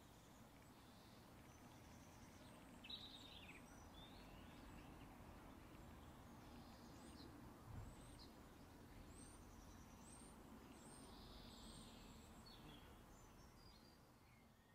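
Faint bird chirps and twitters over a low steady hiss, fading out near the end.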